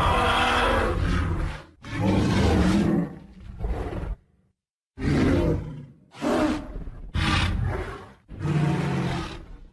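Dinosaur roar sound effects: a string of about seven deep roars, each about a second long, with short breaks and one brief silence about halfway.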